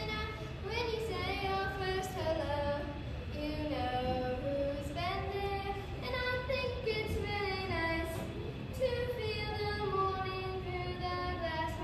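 A child singing a slow song, holding long notes and sliding between them.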